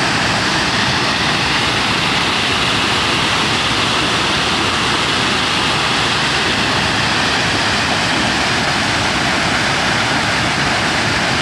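Waterfall: the steady, loud rush of falling water, even throughout with no breaks.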